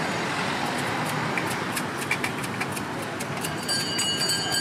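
Steady hum of road traffic and idling engines, with light, irregular clicks from about a second in and a high, steady whine joining near the end.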